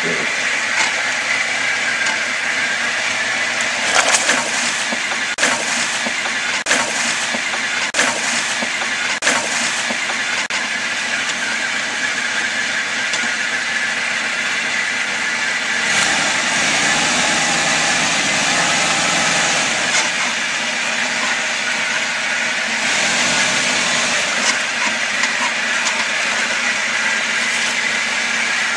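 Suzuki SJ 4x4 crawling down a steep rutted track, its engine running under a steady hiss. Several sharp cracks come between about four and ten seconds in, and the engine grows louder and deeper around the middle and again near the end as the vehicle comes closer.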